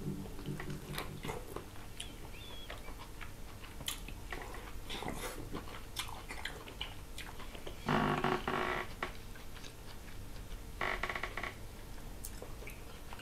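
Close-miked biting and chewing of a juicy rice-stuffed tomato: wet mouth sounds and small clicks. Two short hums from the eater come about eight and eleven seconds in.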